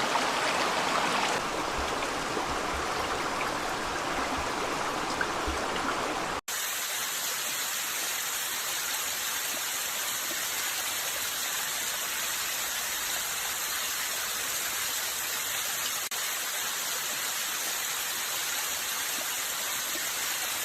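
Steady rush of running water. About six seconds in it cuts abruptly to a brighter, hissier water noise that holds steady.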